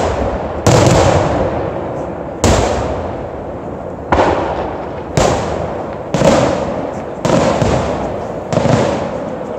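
Aerial firework shells bursting overhead: about seven loud bangs, one every one to two seconds, each trailing off in a rolling echo.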